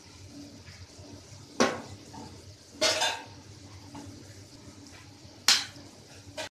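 Metal spoon clinking against a kadai about four times as spices are added, the second clink longer and scraping, over a faint sizzle from the tomato mixture cooking in the pan.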